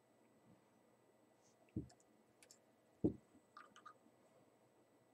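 Faint clicks and ticks of a small screwdriver working a screw into a Zenit E camera's metal body. Two soft knocks come about two and three seconds in.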